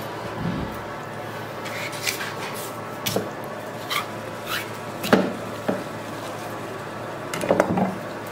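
A knife cutting and scraping through a raw sturgeon on a plastic cutting board: a scatter of short knocks and scrapes, with a cluster of them near the end, over a steady background hum.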